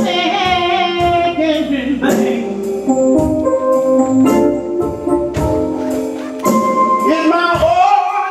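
Gospel music with singing over organ and drums.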